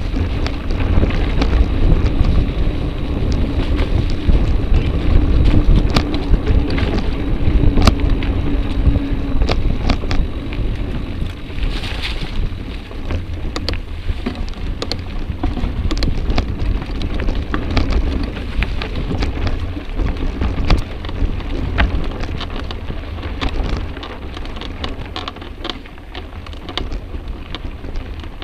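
Mountain bike riding fast over a dirt forest trail: wind rumble on the microphone with a steady scatter of sharp clicks and knocks as the bike and camera jolt over the bumps. It eases a little near the end.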